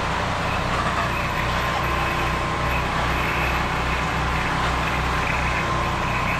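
Pressure-washing rig running steadily, with the steady hiss of water spraying from a hand-held spray gun onto vinyl siding over a low engine hum.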